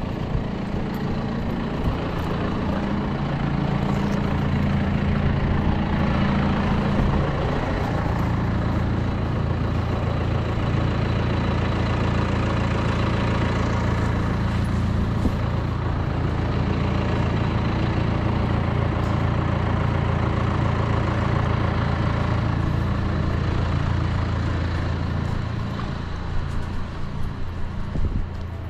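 An engine running steadily, its low hum shifting in pitch about seven and again about fifteen seconds in, with a few knocks near the end.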